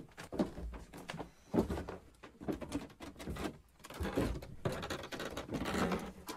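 Irregular footsteps and knocks on old wooden stairs, with clunks from a door being handled near the end.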